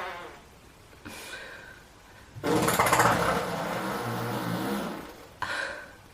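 Fart sounds: a short, quieter puff about a second in, then a long, loud, rumbling fart lasting more than two seconds, and a brief one near the end.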